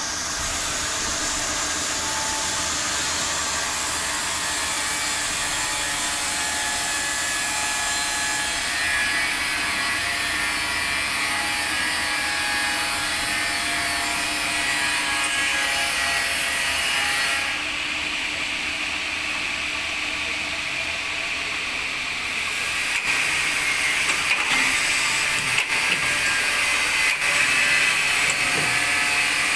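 Amada HA-250 horizontal metal-cutting band saw running with its blade cutting through bar stock: a steady sawing hiss with several thin high ringing tones. The tone shifts a few times, and in the last several seconds the sound grows louder with scattered clicks.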